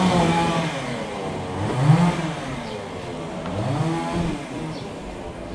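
An engine revved up and let fall back three times, about two seconds apart, each rev a rising then falling pitch.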